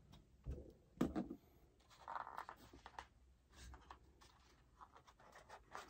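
Faint handling noise: a few soft taps and brief rustles as a small product box and its packaging are handled.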